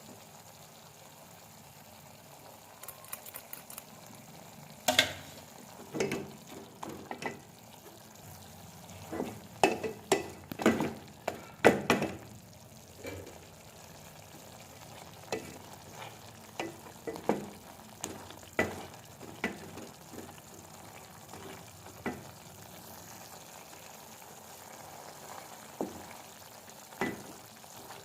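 Chicken frying in oil in a pot with a steady low sizzle, browned (bhunai) after its cooking water has boiled off. A spoon stirs it, scraping and knocking against the pot in irregular clusters that are busiest in the first half.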